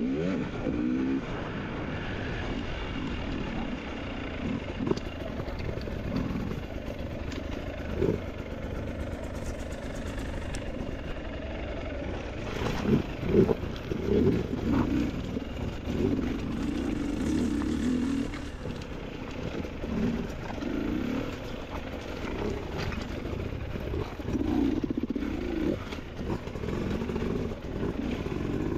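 Motorcycle engine running and revving up and down at low speed while ridden over rough creek-bed ground, with a few knocks, the loudest about halfway through.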